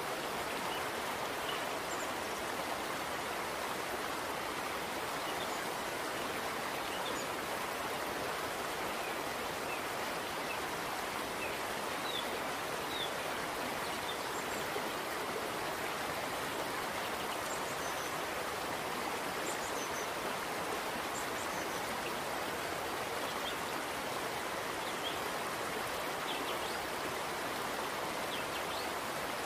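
Steady rushing of a flowing stream, with faint, short high-pitched blips scattered through it.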